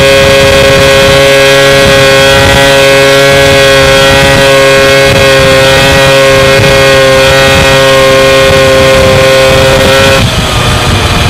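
Motorcycle engine running at a steady cruising speed, one constant pitch held for about ten seconds, with wind buffeting the microphone. About ten seconds in, the steady note breaks off as the bike slows.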